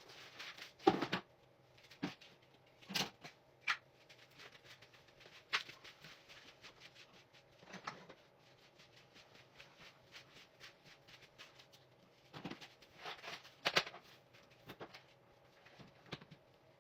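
Household objects being handled and put away: scattered knocks, clicks and light clatters with some rustling in between, the sharpest knocks about a second in, near three seconds and near fourteen seconds.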